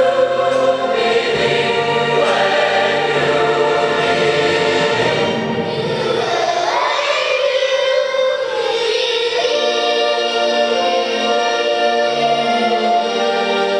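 Choir singing held chords, with a voice gliding upward about six seconds in.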